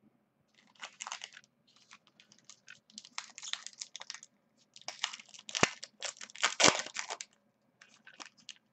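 Foil wrapper of a 2011 Bowman Platinum baseball card pack crinkling and tearing as it is opened, in irregular crackling bursts that are loudest about five to seven seconds in.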